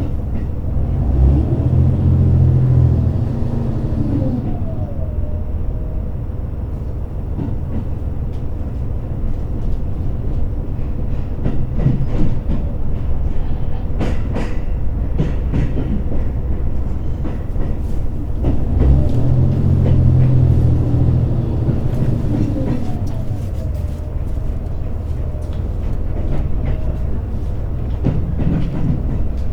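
Interior running sound of an H100 series diesel-electric railcar: a steady low drone from the engine and motors, which swells with gliding tones twice, about a second in and again about nineteen seconds in, while the wheels click over rail joints in the middle and near the end.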